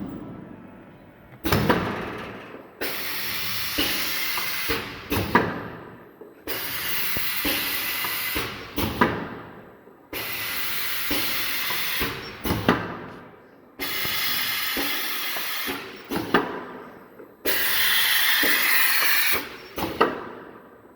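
Pneumatic cup filling and sealing machine cycling. Each cycle is a sudden burst of compressed-air hiss that fades away, with sharp clacks and knocks from the moving parts, and it repeats about every three and a half seconds.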